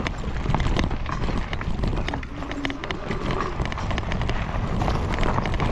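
Bike rolling fast over a rough dirt trail: a steady rumble of tyres on dirt with many small rattling knocks, and wind on the microphone.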